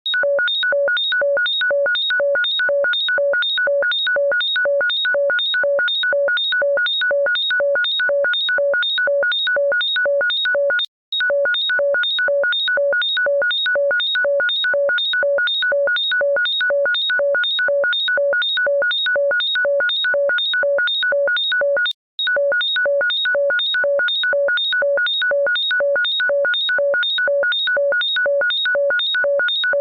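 Electronic ringtone: a fast, evenly repeating train of identical shrill beeps, each a chord of several steady pitches, playing on a loop that breaks off for a split second about eleven seconds in and again about twenty-two seconds in.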